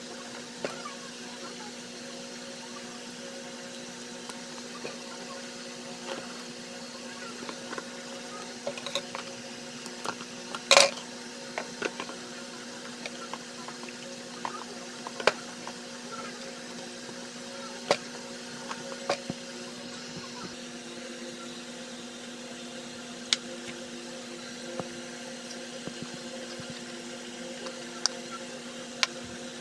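Light taps, clicks and rustles of hands handling a cardboard box and paper, with one louder knock about eleven seconds in, over a steady background hum.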